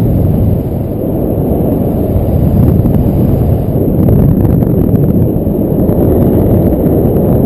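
Wind rushing over the camera microphone in paraglider flight, a loud, steady, deep rumble.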